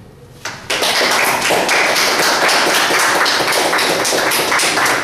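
A small group of people applauding, the clapping starting just under a second in.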